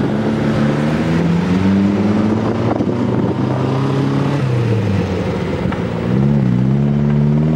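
Off-road trial buggy's engine running under load as it climbs over a log obstacle, its revs sagging about halfway through, then picking up again with a couple of quick blips.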